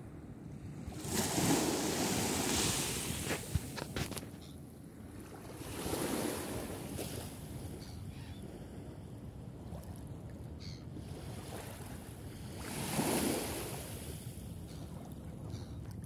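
Gentle sea waves washing in, the wash swelling three times: near the start, about six seconds in, and near the end, over light wind. A few brief clicks come about four seconds in.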